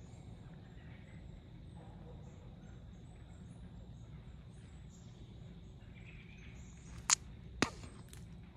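Quiet woodland ambience with faint, distant bird chirps, then two sharp clicks about half a second apart near the end.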